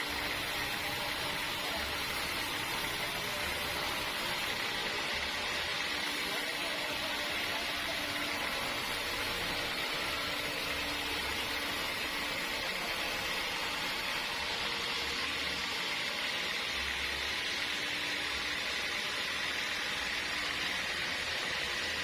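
Sawmill machinery running steadily: an even hiss with a low steady hum underneath, no change in loudness.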